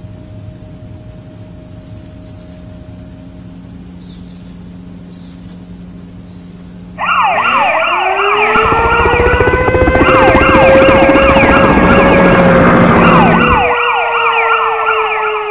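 Sirens start suddenly about seven seconds in: a fast, repeating yelp layered with a slower wail that rises and then sinks, both loud, over a heavy rumble that drops out shortly before the end. Before that there is only a faint steady hum.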